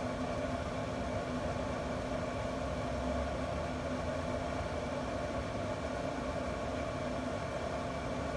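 Camp Chef pellet grill's combustion fan running with a steady hum: a few held tones over a low rumble.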